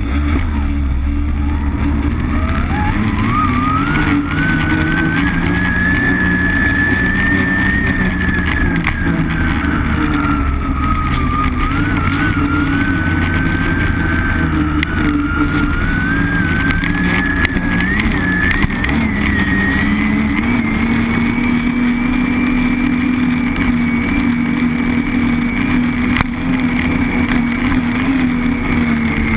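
Arctic Cat M7 snowmobile's two-stroke engine under way at speed, its whine climbing over the first few seconds as the sled picks up speed, sagging around ten seconds in, then rising again and holding steady and higher for the rest.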